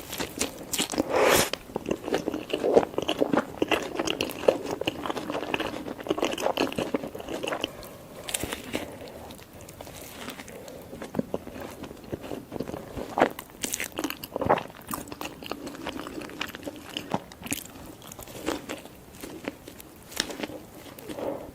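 Close-miked biting and chewing of a burger, full of crisp crunching and crackling, with a few sharper crunches standing out among the chewing.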